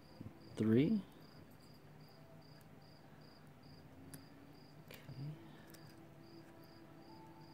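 A cricket chirping steadily in the background, about three short high chirps a second, with a few faint clicks from a lock pick working the pins of a pin tumbler lock.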